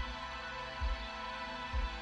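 Background music: sustained held tones over a low beat that falls a little less than once a second.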